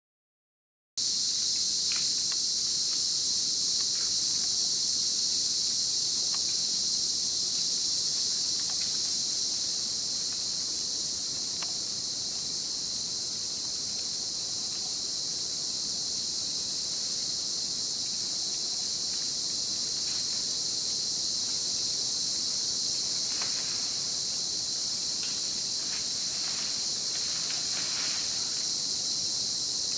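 Steady, high-pitched chorus of forest insects, starting about a second in, with a few faint clicks and rustles near the end.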